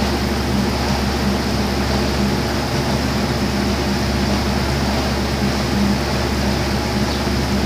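A steady droning hum with a rushing noise over it, unchanging throughout.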